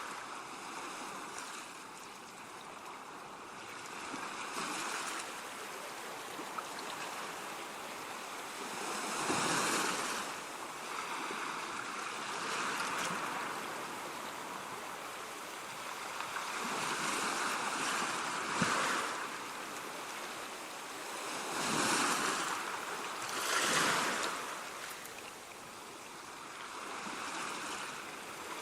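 Sea waves breaking and washing ashore, a steady hiss of surf that swells with each wave, the strongest breakers coming about ten seconds in and again between about 17 and 24 seconds.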